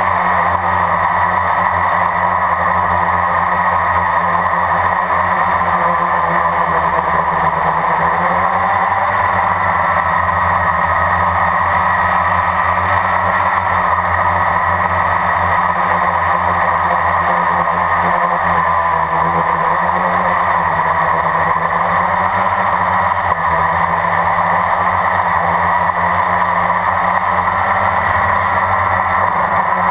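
Blade 350 QX quadcopter's electric motors and propellers whining steadily in flight, heard up close from the onboard camera, the pitch rising and falling slightly as it manoeuvres.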